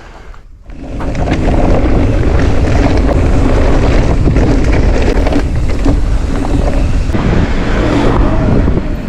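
Wind buffeting an action camera's microphone over the rumble and rattle of an e-mountain bike ridden fast. It swells sharply about a second in and eases off near the end.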